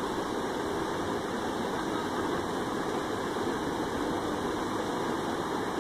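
Steady rushing of a shallow mountain river pouring over a small rocky cascade.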